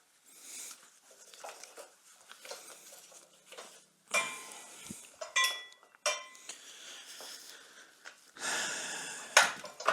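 Metal clinking and scraping on a cast iron grate, with several sharp strikes that ring briefly, the loudest near the end.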